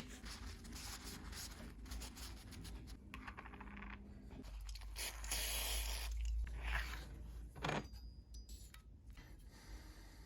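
Hand work on bicycle headset parts: irregular scraping and small metallic clicks, with a longer stretch of steady scraping around the middle and a sharp knock a little later.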